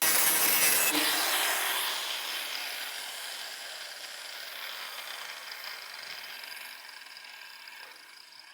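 Power grinder on the welded steel snowmobile tunnel, a loud hissing noise that fades away steadily over several seconds.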